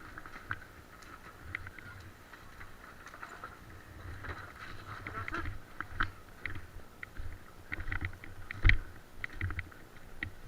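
Irregular sharp clicks and knocks over a low rumble from players moving in an airsoft game, growing busier in the second half, with one loudest knock near the end.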